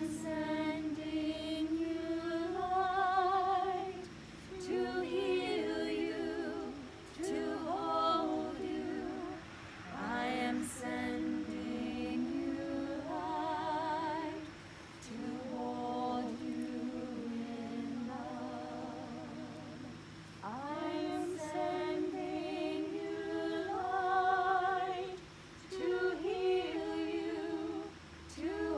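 Small women's choir singing a cappella, slow sung phrases of a few seconds each with brief breaks between them.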